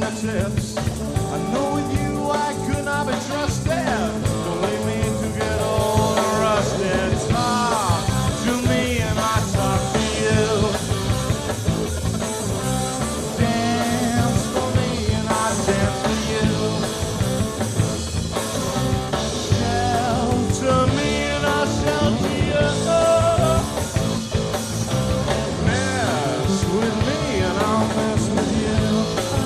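Band playing live: an instrumental passage with a steady beat and a lead line that now and then bends in pitch.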